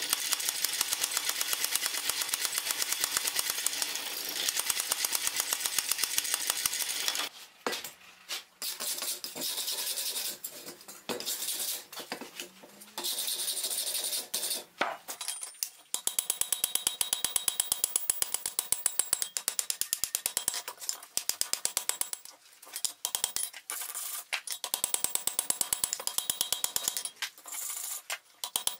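Power hammer pounding a glowing steel bar in fast, steady blows for about seven seconds. After a gap with a few scattered knocks, hammer blows on the hot bar over an anvil come in quick, regular runs.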